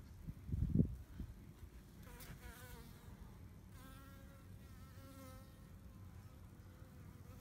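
Bees buzzing in flight close by, the hum wavering in pitch as they move, loudest twice in the middle. Near the start there is a short low thump.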